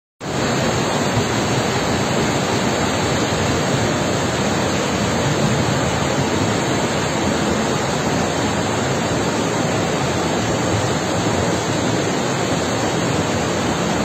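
Steady, loud rushing of a muddy river in full flood, a fast torrent carrying masses of cut logs.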